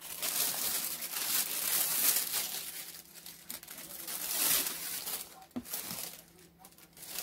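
Clear plastic packaging bag crinkling and rustling as it is pulled off and around a plastic action figure. The rustling comes in uneven bursts and dies down near the end.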